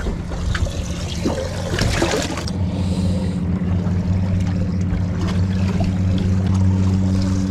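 Splashing and trickling water with some handling knocks. From about two and a half seconds in, a Mercury outboard motor runs with a steady low hum, water lapping around it.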